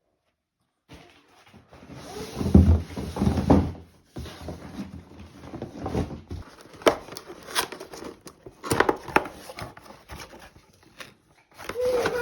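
Vacuum accessories being unpacked by hand: paper and cardboard packaging rustling, with scattered sharp clicks and knocks of parts being handled. The rustling is loudest in the first few seconds.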